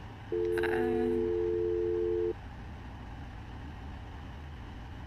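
A steady electronic tone of two pure notes held for about two seconds, then cutting off sharply and leaving only a low, steady background hum.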